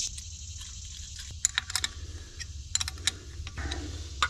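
An open-end wrench clicking and clinking against the metal fittings of a coolant filter head as they are tightened. It makes a string of sharp metallic ticks, some with a brief ring, over a low steady hum.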